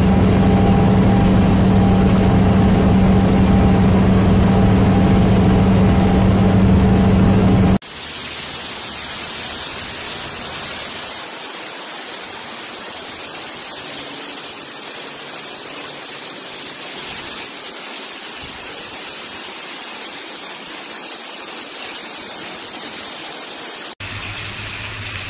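Engine and road noise inside a moving vehicle, a loud steady drone with a low hum, for about eight seconds. It cuts off abruptly and is replaced by the even hiss of heavy rain pouring down.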